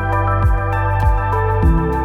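Background music: sustained held chords over low, repeated thumps.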